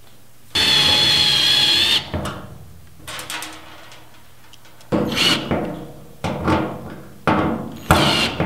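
Cordless drill with a nut-driver bit running down the fasteners on a fuel pump mounting flange. One steady, whining run of about a second and a half comes first, then a string of short bursts as each fastener is driven home.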